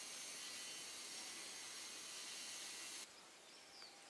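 Steady, high-pitched chorus of insects that cuts off abruptly about three seconds in, leaving a quieter forest background with a short bird chirp near the end.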